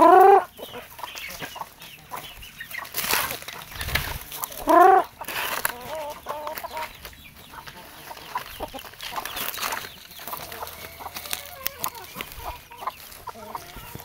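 Free-range chickens clucking, with two loud, short calls that rise in pitch, one right at the start and one about five seconds in.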